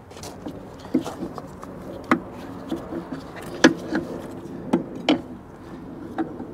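Scattered sharp clicks and knocks of a spin-on hydraulic case drain filter being threaded by hand onto its filter head on an excavator, with about five louder knocks.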